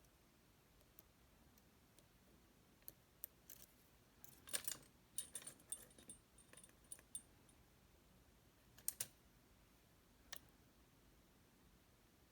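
Faint metallic clicks and scrapes of a lock pick working the pins of a Lockman Megacross SP lock cylinder. A quick run of clicks about halfway through carries a short high metallic ring, and a few single clicks follow.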